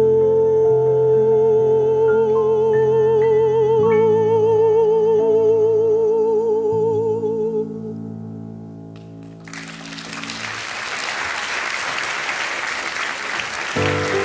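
A woman's voice holds the song's long final note with a wide vibrato over grand piano chords; the voice stops about seven and a half seconds in and the piano dies away a few seconds later. Audience applause starts about nine and a half seconds in and continues.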